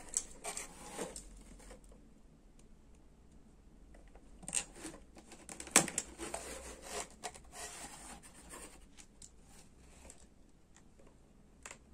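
Scattered scratching, rustling and sharp clicks of toy packaging being handled as a small plastic figure is worked free of its insert, with the loudest click about halfway through.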